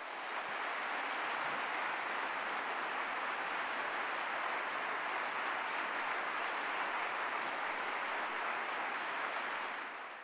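Large audience applauding steadily, swelling in over the first moment and fading out near the end.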